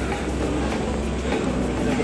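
Busy shopping-mall corridor ambience: a steady low rumble under a general hum of crowd noise.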